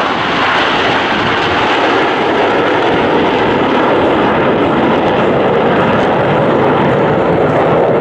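Jet noise from a formation of KAI T-50B jet trainers, each powered by a single turbofan, flying past overhead: a loud, steady rush whose pitch gradually sinks lower over the seconds.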